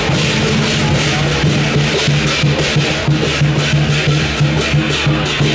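Chinese lion dance percussion: a big drum beating with cymbals crashing in a fast, steady rhythm.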